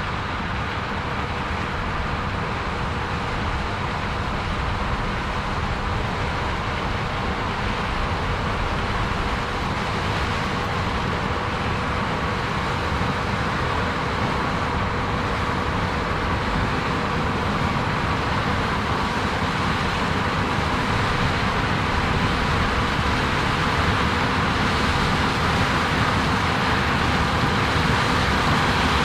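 Heavy harvest machinery, such as a combine harvesting corn, running steadily with a faint constant whine, slowly growing louder.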